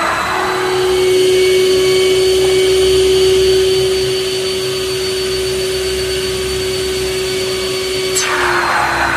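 Skyvac gutter vacuum running with a steady motor whine. About eight seconds in there is a click and a burst of hiss, and the whine dips slightly in pitch.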